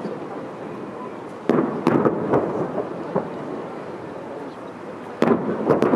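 Aerial fireworks shells bursting overhead: a group of sharp bangs about one and a half seconds in, and another group near the end.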